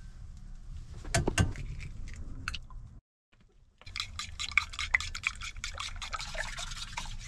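Raw eggs cracked on the rim of a mixing bowl and dropped in, with two sharp cracks about a second in. After a brief gap, a plastic fork beats the eggs in the bowl in a fast run of clicks and scrapes against the bowl.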